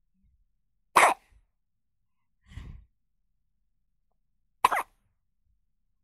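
Newborn baby hiccuping: two short, sharp hiccups about a second in and near the end, with a fainter one between them.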